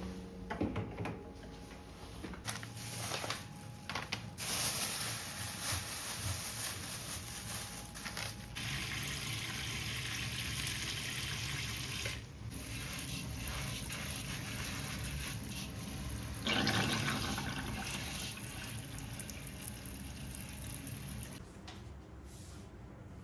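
Water running steadily from a tap, after a few knocks and clatters. The flow gets louder for a moment about two-thirds of the way through and stops shortly before the end.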